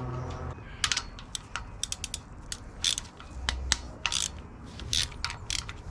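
Hand ratchet wrench clicking in uneven strokes as bolts are worked loose during an engine teardown.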